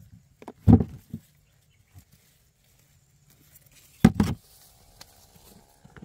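Two heavy thuds, about a second in and about four seconds in, with a few lighter knocks: freshly dug rhizomes and other items being dropped and set into a plastic basket.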